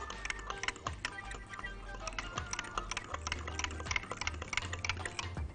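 A utensil clicking rapidly against the sides of a glass Pyrex measuring jug as eggs and milk are whisked together, over background music.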